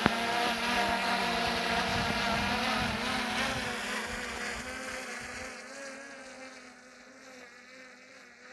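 DJI Mini 3 drone's propellers buzzing with a wavering whine, fading steadily as the drone climbs away.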